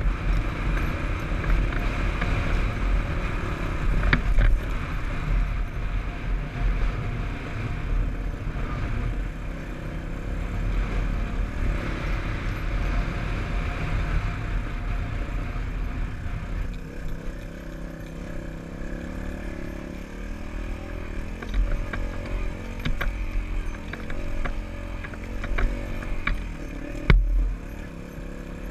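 Dirt bike engine running as it is ridden, its pitch rising and falling with the throttle. Several sharp knocks come in the second half, and one loud thump comes about a second and a half before the end.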